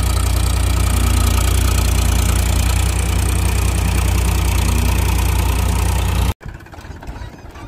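Powertrac Euro 50 tractor's diesel engine running steadily while working a rotavator. The engine sound cuts off suddenly about six seconds in.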